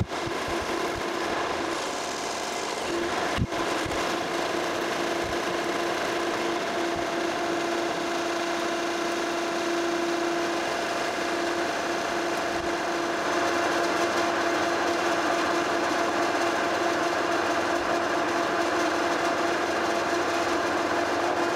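Metal lathe running under a facing cut across a flame-cut plate: a steady hum from the spindle drive with the hiss of the tool cutting the face. A single sharp click about three and a half seconds in, and the sound grows a little louder from about halfway through.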